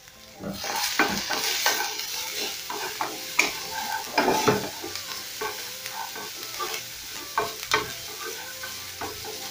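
Chopped capsicum, coriander stems and grated ginger sizzling in hot oil in a nonstick frying pan. The sizzle starts about half a second in as the vegetables go in. A wooden spatula stirs them throughout, scraping and tapping against the pan.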